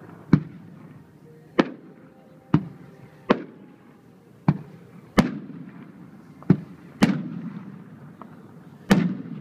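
Aerial firework shells bursting overhead: about nine sharp bangs, roughly one a second at uneven spacing. The louder bangs trail off into an echo.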